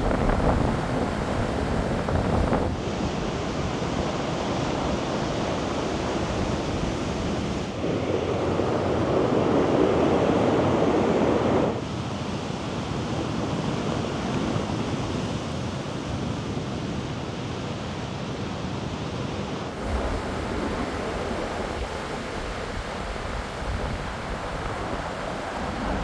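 Storm surf crashing on the shore, with strong gale wind buffeting the microphone. The noise changes abruptly several times and is loudest for about four seconds a third of the way in.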